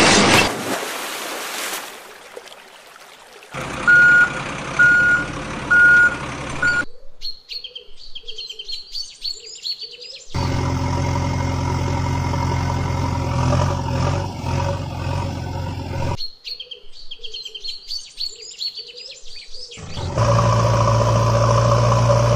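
A string of dubbed sound effects. First a splash of water, then a reversing alarm beeping four times, then birds chirping. A heavy engine then runs steadily, birds chirp again, and the engine runs again near the end.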